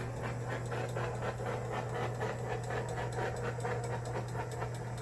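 A handheld torch hissing and sputtering in rapid pulses, about four a second, over a steady low hum: the flame catching unevenly on a torch that will not run right just after it is turned on.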